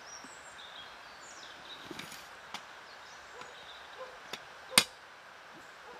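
A few sharp clicks, one much louder about three-quarters of the way in, over faint high bird chirps.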